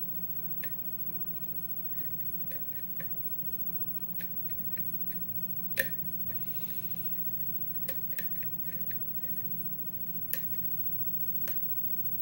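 Light metallic clicks and a brief scrape of a short-hook lock pick working the pins of a six-pin Yale pin-tumbler lock under tension, during single-pin picking. The clicks are scattered and irregular, the sharpest about six seconds in, over a low steady hum.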